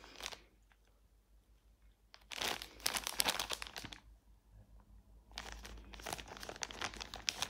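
Clear plastic bag of yarn balls crinkling as it is handled and turned, in three bouts with short quiet gaps between.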